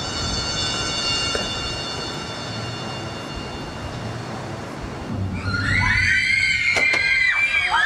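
A crowd of people bursts into screaming about five seconds in: many high-pitched shrieks overlapping and sliding in pitch, after a few seconds of steady background noise.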